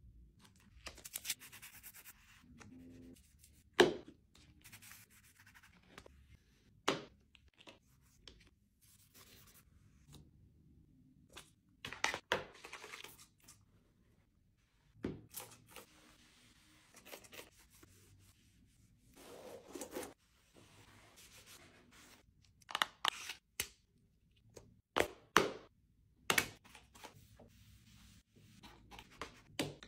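Close-up handling and cleaning of electronics: a cloth wiping over a tablet's glass screen and a laptop's metal lid in rubbing strokes a second or two long, between sharp taps and clicks as the devices are handled and set down on a wooden table.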